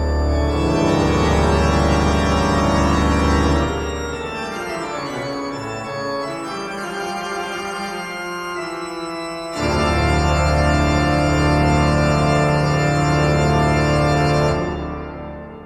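Background music of sustained keyboard chords over a heavy bass. It drops to a quieter passage a few seconds in, a louder chord comes in suddenly at about the midpoint, and the music fades out near the end.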